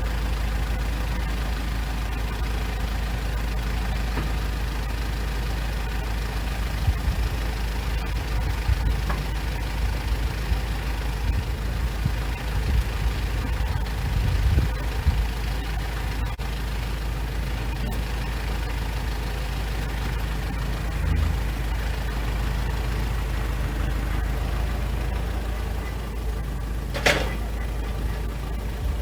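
Wood-Mizer LX150 sawmill engine running steadily, with a single sharp knock about 27 seconds in; the engine cuts off near the end.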